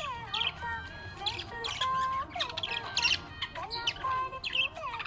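Budgerigars chirping and warbling: a continuous stream of quick chirps, squawky notes and short whistled sweeps.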